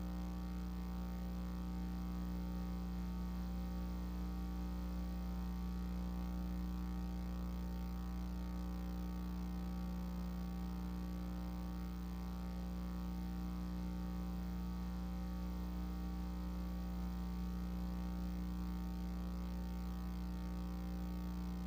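Steady electrical hum with a buzzy edge, mains hum carried on the recording's audio track.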